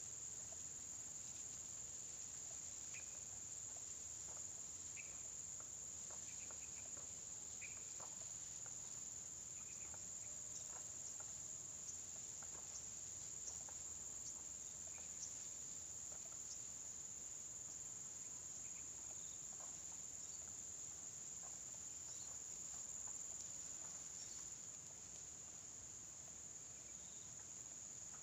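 A steady, high-pitched insect chorus drones on, with faint scattered ticks and a few short chirps over it.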